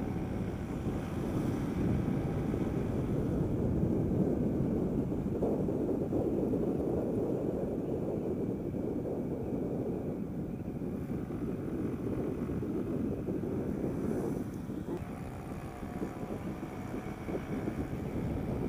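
Steady wind rush on the microphone of a GY6-engined Honda Ruckus scooter riding at speed, with its engine running underneath.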